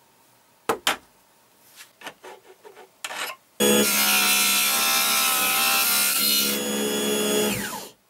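Small bench-mounted power tool with a spiral cutting bit running and cutting wood, a steady loud whine with rushing noise that falls in pitch and dies away as the motor winds down near the end. Before it, a couple of sharp clicks and light taps from handling a small clamped wooden part.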